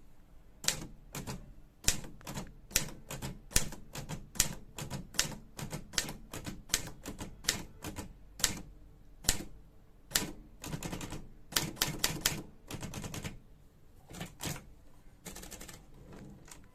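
Olivetti Studio 44 manual typewriter being typed on: a run of sharp keystrikes, about two or three a second, with quicker, denser clatter about two-thirds of the way through and again near the end.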